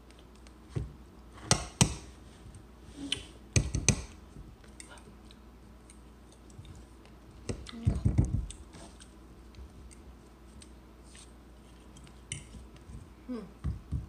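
Forks clinking and scraping against a plate and a bowl during a meal, in scattered sharp clicks and knocks with quiet between, including a cluster of louder knocks about eight seconds in.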